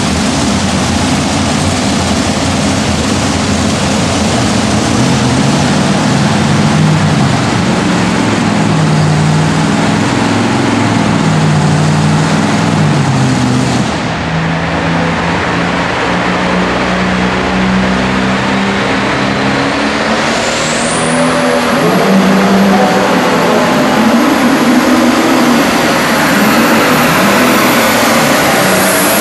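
Pro Stock pulling tractor's turbocharged diesel engine running hard under load as it drags the weight sled, its pitch rising and falling. About two-thirds through, a high turbo whistle climbs steeply and then holds.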